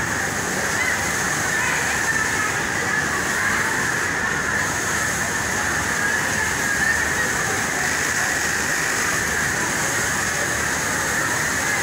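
Industrial sewing machines running on a garment factory floor, including a Kansai multi-thread machine stitching a plaid shirt: a steady mechanical din with a high whine that does not let up.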